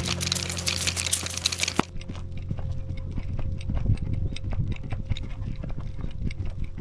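Quick, irregular footfalls on a dirt forest trail: a crisp crackling patter for about the first two seconds, then duller low thuds.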